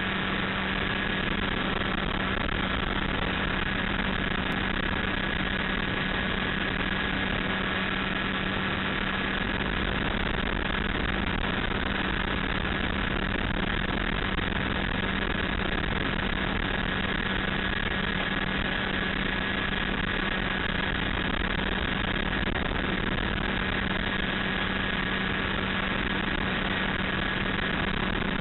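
Light aircraft's engine and propeller running steadily in cruising flight, heard from inside the cockpit together with rushing wind. It makes an unchanging low drone with a fainter higher whine above it.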